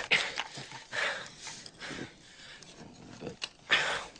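A man's heavy, ragged breathing: a run of short gasping breaths, with the loudest one near the end.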